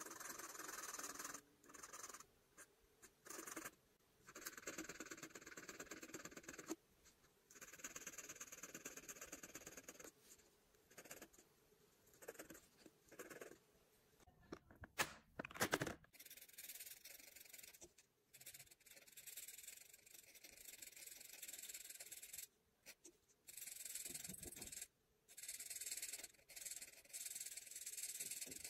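Alcohol marker's felt tip rubbing across paper in coloring strokes, the strokes coming in stretches separated by short pauses, with a few louder clicks about halfway through.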